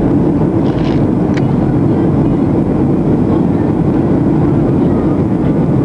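Steady low cabin roar inside a Boeing 737-700 during descent, heard from a window seat over the wing: the drone of its CFM56-7B turbofan engines and the airflow over the fuselage, unchanging throughout.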